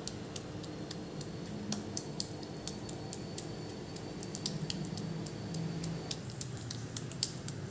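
Wet hands pressing and smoothing a coating of ground prawn masala paste around a boiled egg over a steel bowl: many soft, sticky clicks and squelches scattered throughout. A faint steady hum runs underneath.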